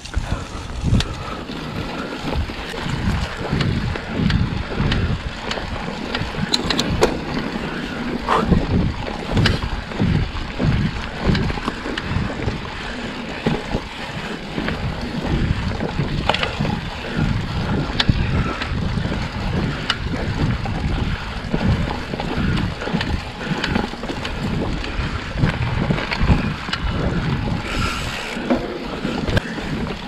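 Trek Fuel EX 8 full-suspension mountain bike being ridden along a dirt singletrack: steady rolling tyre and bike noise with wind buffeting the microphone, broken by frequent small knocks and rattles from the bumpy trail.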